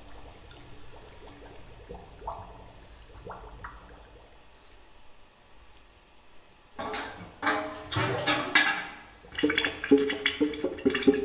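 Contemporary chamber music for violin, cello, piano and percussion. It opens quiet and sparse, with a water-like noisy texture and a few short rising slides. About seven seconds in, the ensemble comes in loudly with dense noise, sharp strikes and sustained pitched tones.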